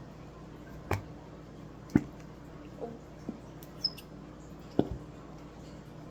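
Several scattered light knocks and clicks, about seven in all at irregular intervals, the sharpest about two seconds in and near the end, over a faint steady low hum.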